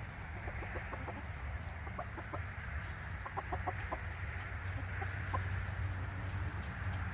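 Chickens clucking: short calls in small clusters, including a quick run of four about three and a half seconds in, over a steady low rumble.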